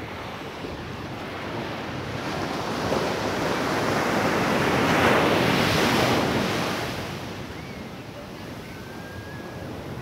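Surf on a sandy beach: a wave swells, breaks and rushes up the shore, loudest about five to six seconds in, then eases back into the steady wash of the shallows.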